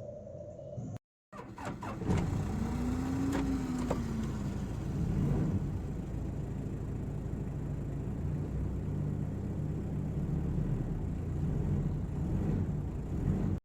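A vehicle engine running steadily, its pitch rising and then falling once about two to four seconds in, after a brief break in the sound about a second in.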